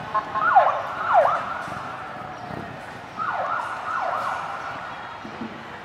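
Police siren sounded in short blips: quick falling whoops, two near the start and two more about three seconds in, over a steady high siren tone that fades away.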